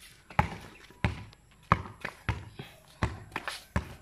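Basketball dribbled on a concrete court, bouncing about six times at a steady pace of roughly two-thirds of a second per bounce.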